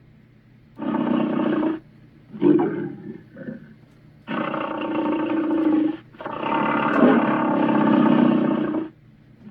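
Monster roar sound effects: four rough, growling roars separated by short silences. The last two are long, the final one lasting nearly three seconds.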